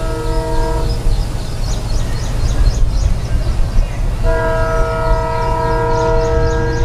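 EMD WDP4D diesel locomotive's air horn sounding twice as the train approaches: a short blast that stops about a second in, then a longer one held from about four seconds in. A steady low rumble runs underneath.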